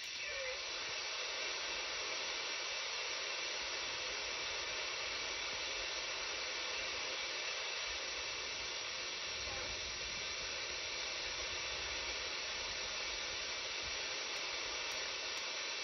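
Steady hiss of FM receiver noise from a KiwiSDR software-defined radio tuned to a weak carrier on 26.110 MHz, a TV station's remote broadcast cue channel, with no programme audio on it.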